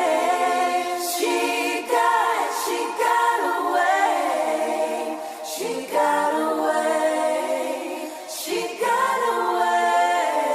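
Music: wordless, layered a cappella vocal harmonies, choir-like and without bass or drums, in long held phrases that break and start anew about every three to four seconds.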